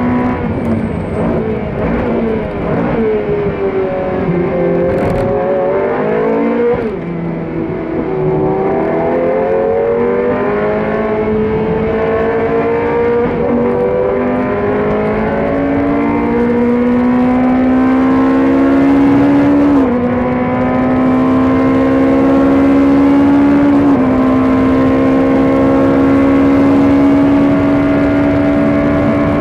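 GT3 race car engine heard from inside the cockpit during a race lap: its pitch falls as the car slows into a corner, then climbs steadily under acceleration, with sharp drops at upshifts about 20 and 24 seconds in.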